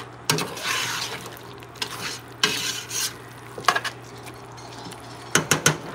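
Thick chicken masala being stirred in a stainless steel pot over the flame: two swells of sizzling and scraping as the utensil sweeps through. Near the end come a few quick clicks of the utensil against the pot.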